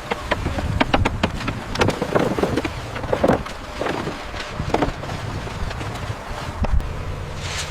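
Construction-site work: scattered sharp metal clinks and knocks, with a few short squeaks, over a low steady machine rumble.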